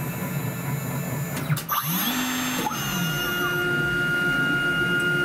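CNC router spindle running at about 20,000 rpm with a steady whine, over the rush of a dust-extraction vacuum. About two seconds in the sound breaks briefly with sliding pitches as the machine's axes move, then the steady whine resumes.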